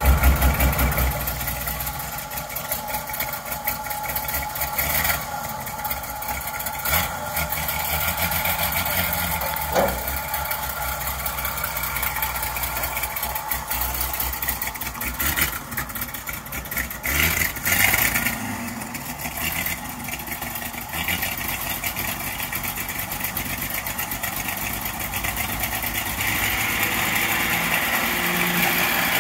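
1969 Chevrolet C50 truck engine running, mostly at a steady idle, with a brief rise in level about two-thirds of the way through.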